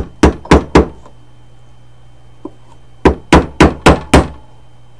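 Hammer blows on a wooden block, driving a replacement sight-glass window into a brake master cylinder reservoir as a tight interference fit: four quick taps, a pause of about two seconds, then five more.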